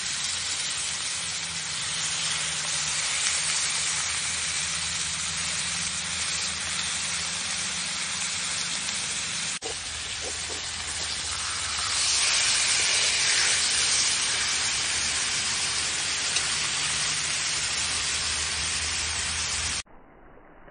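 Steaks sizzling in a hot ridged grill pan over a fire: a steady hiss that swells louder for a couple of seconds about twelve seconds in, after a steak is turned. Just before the end it cuts off sharply to a much quieter, duller background.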